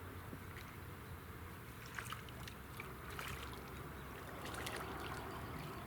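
Faint water lapping and trickling against a small fishing boat's hull, with small irregular splashy clicks over a low steady hum.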